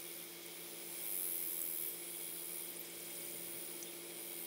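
Steady outdoor background hiss with a faint low hum, and a high-pitched buzzing trill for about a second, starting about a second in.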